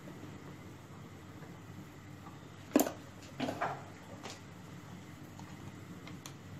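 A single sharp knock about three seconds in, then a short clatter, from kitchen utensils or containers handled off to the side, over a faint steady low hum.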